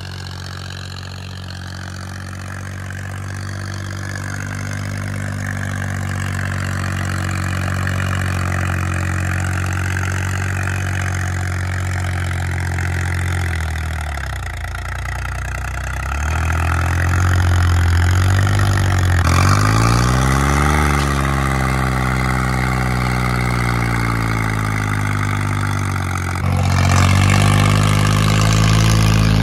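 John Deere tractor's diesel engine running under load while pulling a disc harrow through soft soil. The engine note sags about halfway through, then rises and falls a few times as the revs change, and jumps louder near the end.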